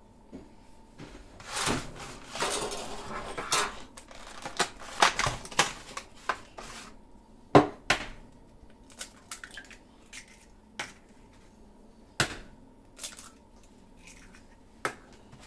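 A clear plastic egg carton is crinkled and snapped open, then eggs are cracked on the rim of a glass mixing bowl, with several separate sharp knocks. The loudest knock comes about halfway through.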